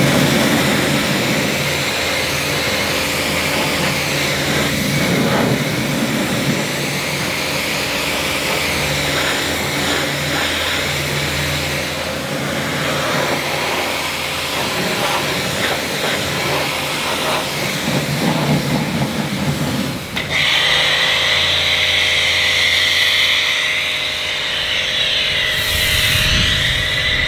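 Pressure washer at work: scrubbing and spray on a car's wheel with the pump motor humming, then about 20 seconds in a steady hiss of the lance spraying water onto the car.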